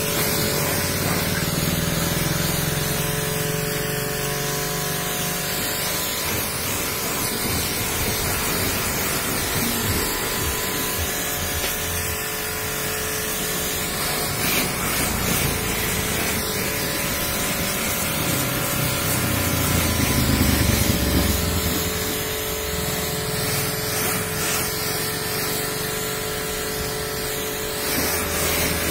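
Pressure-washer jet spraying water onto a car's bodywork: a steady hiss, with a constant hum underneath and the sound swelling twice as the jet strikes closer panels.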